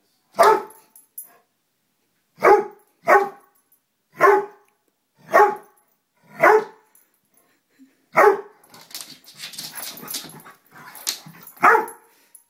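A dog barking at a moth, about eight single barks at uneven intervals. Between the last barks comes a quieter stretch of scuffling and scratching as it paws at the doormat.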